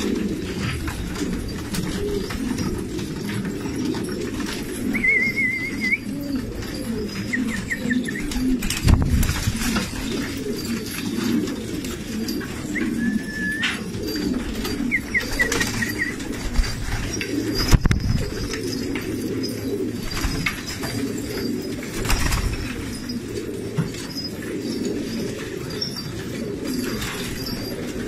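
Many domestic pigeons cooing steadily together, with a few short high chirps and occasional brief thumps.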